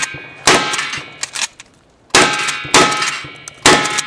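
Mossberg 590 pump shotgun fired at steel targets, about four shots in quick succession, each followed by the ringing clang of the struck steel plate.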